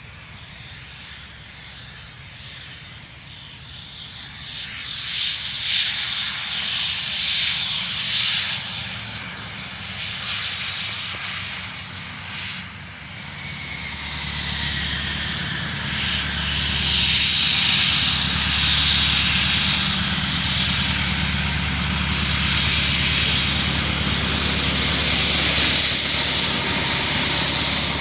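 An Eclipse very light jet's twin Pratt & Whitney Canada PW610F turbofans whine at taxi power, growing much louder as the jet rolls up close. A high steady whine runs throughout, and a second, lower tone falls in pitch partway through.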